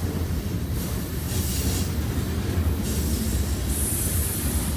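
A CSX freight train's cars rolling past just below, their wheels on the rails making a steady low rumble. A high hiss swells and fades twice over it.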